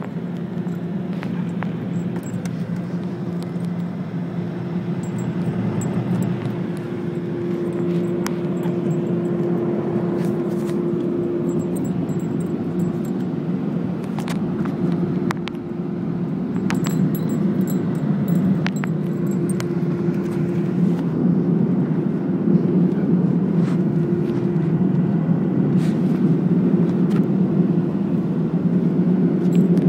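Steady mechanical drone with a low, even hum and scattered faint clicks, growing slightly louder toward the end.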